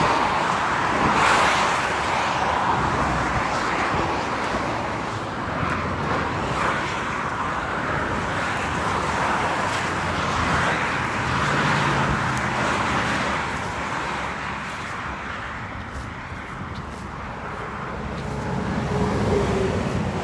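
Traffic on a busy highway: cars passing close by in a continuous rush of tyre and engine noise that swells and fades several times.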